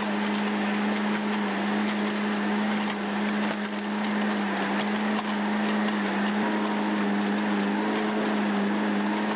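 Machinery running: a steady low hum with a hissing, crackling noise over it.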